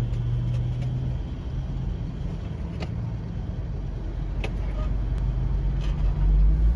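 Road traffic heard from inside a car stopped at a red light: a steady low engine hum and rumble as pickup trucks and cars drive across the intersection, the rumble swelling near the end as a vehicle passes close.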